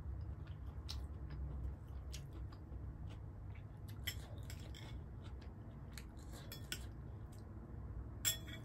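Close-miked eating sounds: soft chewing with small scattered clicks, and a metal spoon clinking in a bowl of gravy, loudest just after eight seconds in. A steady low hum runs underneath.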